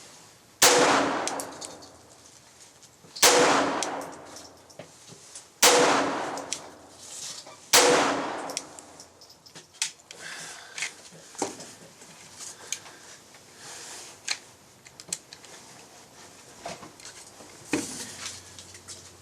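Four .22 LR pistol shots from a Glock fitted with a Tactical Solutions TSG 17/22 conversion kit, about two and a half seconds apart, each with an echoing tail. After them come quieter clicks and clatter of the pistol being handled.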